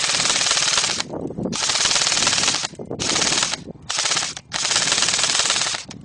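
Airsoft gun firing on full auto in five bursts of rapid clicking shots, each about half a second to a second and a half long, with short gaps between.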